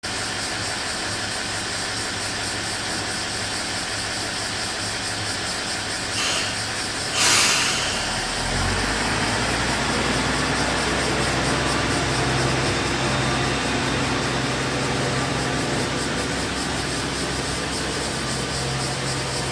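Tenryū Hamanako Railroad TH2100 diesel railcar idling, then two short hisses of air about six and seven seconds in, the second much louder, as its brakes are released. Its diesel engine then works harder with a deeper, stronger sound as the railcar pulls away from the platform.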